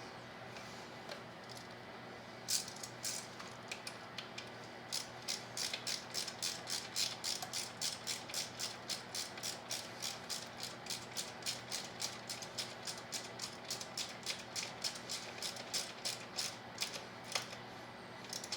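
Hand socket ratchet clicking in quick, even strokes, about four clicks a second, as a bolt is run in; it starts a couple of seconds in and stops near the end.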